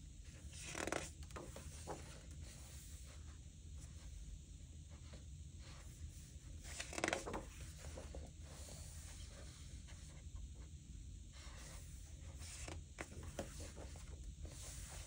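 Coloring-book pages being turned and smoothed by hand. There is a soft papery swish about a second in, a louder one about seven seconds in, and lighter rustling of paper under the hand near the end.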